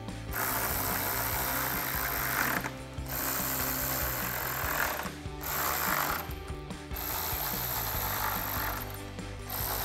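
Milwaukee cordless ratchet with a 10 mm socket running bolts down in several runs of a second or two each, stopping briefly between bolts.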